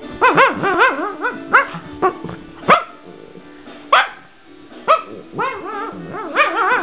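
A dog making a run of short, high-pitched yips and whines, each call rising and falling in pitch: a quick cluster at the start, single sharper ones spaced out through the middle, and another quick cluster near the end. These are play vocalisations.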